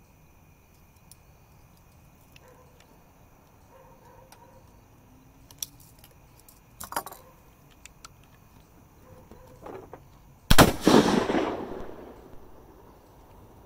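Traditions flintlock blunderbuss firing one shot about ten and a half seconds in: a sudden loud blast that dies away over about a second and a half. Before it, a few small clicks from the lock being handled and primed.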